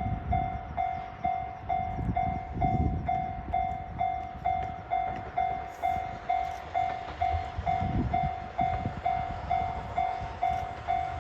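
Japanese railway level-crossing warning bell ringing, a steady electronic ding repeating about twice a second. Beneath it is the low, uneven rumble of an approaching train.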